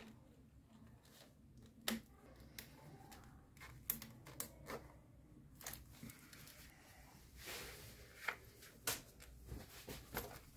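Faint workshop handling noises as a gloved hand works hose clamps and rubber gas hoses on an LPG injector rail: scattered sharp clicks, the loudest about two and four seconds in, and a short rustle later on.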